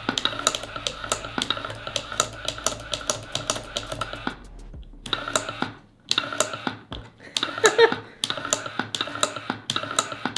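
Wooden useless box in rapid play: its toggle switch clicked on and off by hand again and again while the box's small motor whirs and its arm flips the switch back, giving a fast run of sharp clicks with a brief pause a little before the middle.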